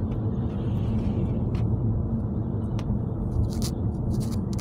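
Car driving on the road, heard from inside the cabin: a steady low hum of engine and tyre rumble, with a few faint clicks.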